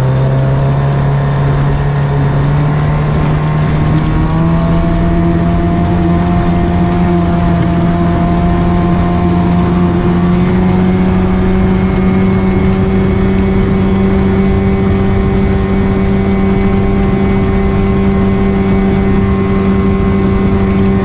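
Small pull-start outboard motor driving an inflatable boat at speed; its pitch rises in two steps, about four and ten seconds in, as the boat gathers speed, then holds steady. Water and wind noise run underneath.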